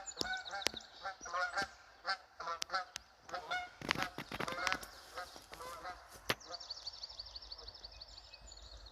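Geese honking in a series of short calls for the first few seconds, with scattered clicks and steps. From about six seconds in, a small bird gives a rapid high trill.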